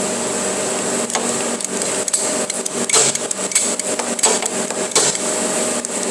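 Plastic water pipe being cut by hand: irregular clicks and knocks with scraping, over a steady high tone.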